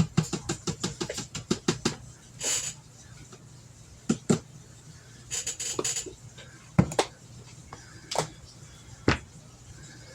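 Spoon and spice containers clinking and tapping as spices are measured out. A quick run of light clicks fills the first two seconds, then come a short shaking rustle and a few separate sharp knocks.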